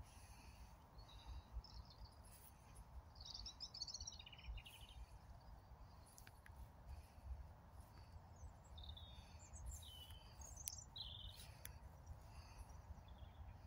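Faint birds chirping and twittering, in a burst about three to five seconds in and another around nine to eleven seconds, over a low steady rumble of outdoor background noise.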